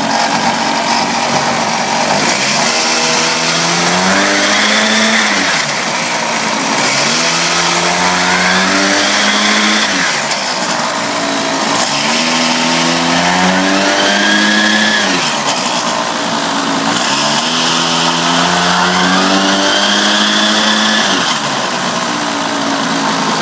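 Small petrol engine of a mini motorbike revved up and let back down about four times, settling to idle in between, with its CVT belt drive and pulleys running uncovered.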